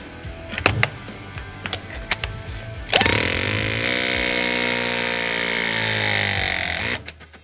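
Klauke EK30IDML battery-powered hydraulic crimping tool running a crimp: a few sharp clicks come first. About three seconds in, its motor and pump start with a loud steady whine that sinks slightly in pitch over about four seconds, then stops suddenly at the end of the crimp.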